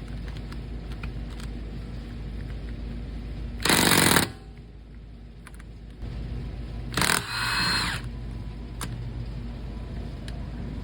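Impact wrench loosening the lug nuts to take a front wheel off. It fires in a short loud burst about four seconds in, then again around seven seconds, the second time running on for most of a second with a higher whine.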